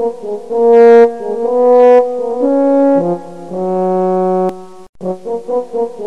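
Background music: a melody of quick short notes followed by long held notes, the phrase starting over about five seconds in.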